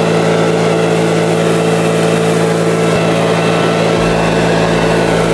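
DCA ACF19 76 cc four-stroke backpack leaf blower running steadily, its engine hum under the rush of air blasting from the nozzle. A deeper rumble joins about four seconds in.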